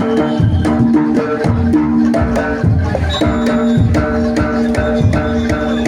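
Live jaranan gamelan music: drums and struck bronze gongs playing a fast repeating melodic pattern, over a steady run of sharp, bright clicks.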